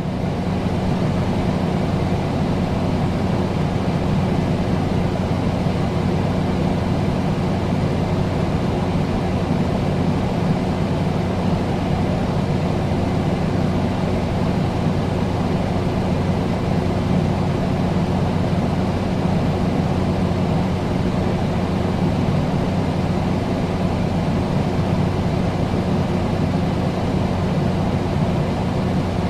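Air conditioner running steadily: an even rush of air over a low, constant hum.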